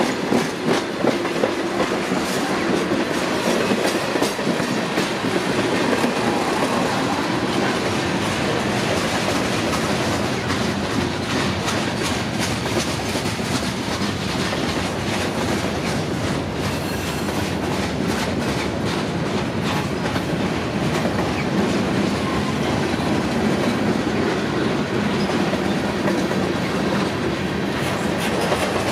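Freight cars rolling past close by: the steady rumble of steel wheels on rail with a constant run of clicks as the wheels cross rail joints, continuing unbroken as tank cars, boxcars and loaded flatcars go by.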